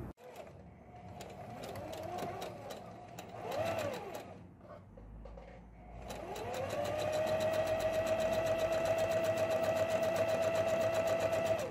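Electric domestic sewing machine stitching a seam through lightweight fabric. It makes a few short, uneven runs, pauses, then about six seconds in speeds up with a rising whine and runs steadily at speed with rapid, even needle ticks before stopping sharply.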